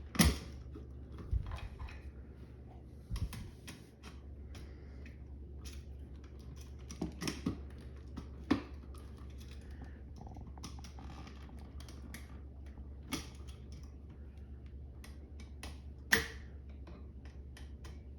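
Hand tools and electrical wiring being handled: scattered sharp clicks and light taps, the loudest at the very start and again about sixteen seconds in, over a steady low hum.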